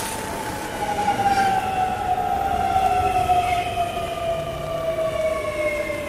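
Electric train running along the platform, its traction motors giving a steady whine that falls slowly in pitch.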